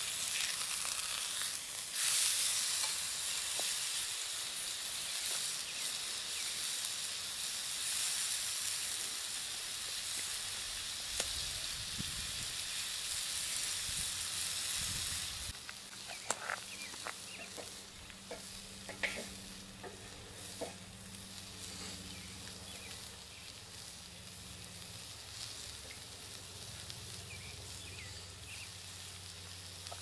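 Steak sizzling in a hot cast-iron skillet over a wood fire: a loud, steady hiss that drops off sharply about halfway, leaving a quieter sizzle with a few sharp crackling pops.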